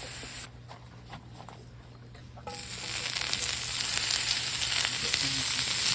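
Food frying in a pan, a steady sizzle. About half a second in it drops much quieter for two seconds, then comes back louder and stays loud.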